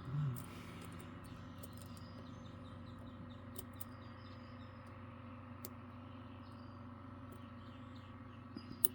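Scattered light clicks, one every second or two, from a dimple flag pick and tensioner working the pins of a Godrej Scorpio dimple lock, over a steady hum.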